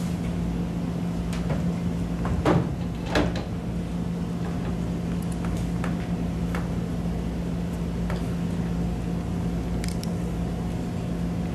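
Steady low hum of the room, with two short knocks about two and a half and three seconds in and a few fainter ticks, from actors handling props and a door on a small stage.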